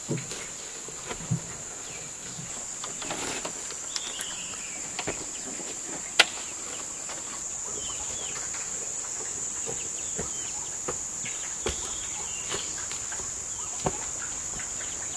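Steady high-pitched insect shrilling in the surrounding forest, with scattered light knocks and footsteps as a wooden box is handled and carried; one sharp knock about six seconds in.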